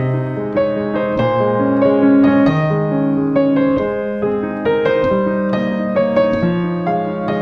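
Background piano music: a slow melody of struck notes over held lower notes.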